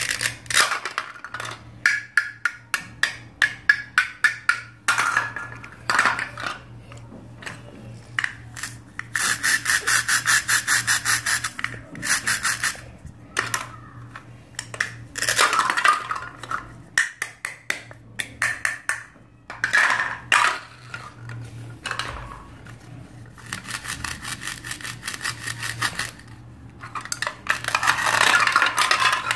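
A plastic toy knife saws back and forth through cut-apart plastic play-food fruits and vegetables, making a scraping rasp of fast, even clicks in stretches lasting two to three seconds. Short single strokes and light plastic clacks of the pieces on a plastic cutting board fall between them.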